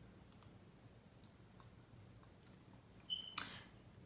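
Quiet eating sounds from a metal spoon and a small plastic baby-food cup: a few faint clicks, then a short, louder rush of noise about three and a half seconds in.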